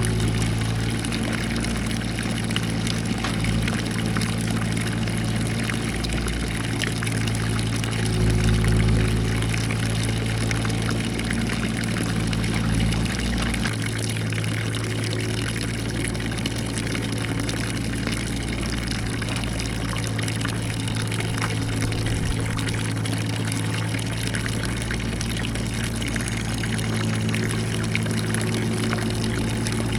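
Mini excavator's small 25-horsepower engine running steadily under work, with its pitch shifting slightly about halfway through.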